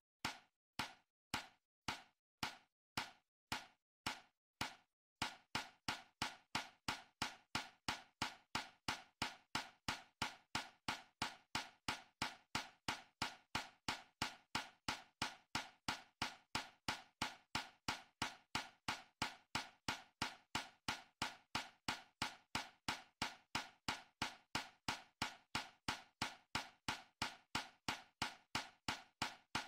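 A steady rhythm of sharp knocks, about two a second, quickening to about three a second some five seconds in.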